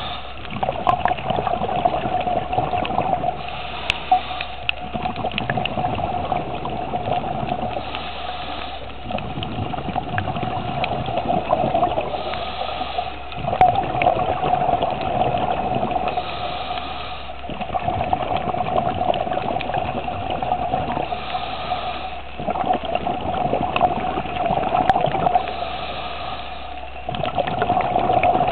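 Scuba diver breathing underwater through a regulator: about every four seconds a short inhale hiss, followed by bubbling and gurgling from the exhaust, over a steady hum.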